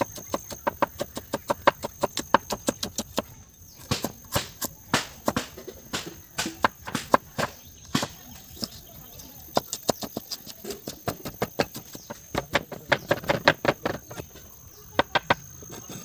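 Cleaver chopping green chillies and then ginger on a wooden log-slice chopping block: quick knocks of the blade on the wood, about five or six a second, in runs with short breaks.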